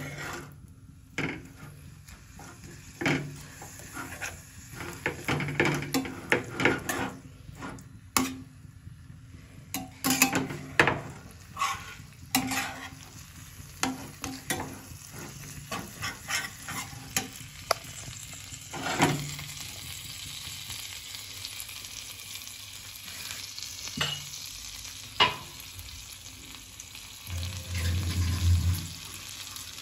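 Flat steel spatula scraping and knocking against a frying pan as a thick masala is stirred, over a steady sizzle of frying. The strokes come irregularly and are densest in the first two-thirds, and a low rumble comes in near the end.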